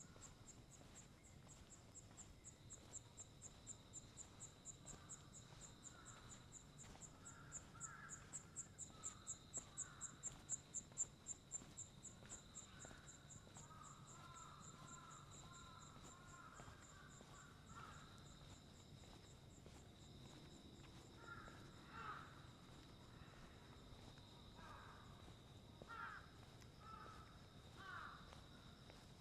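Faint early-morning ambience: an insect's high, rapidly pulsed song swells and then stops about twelve seconds in, over a steady high insect drone. Crows caw a few times in the second half.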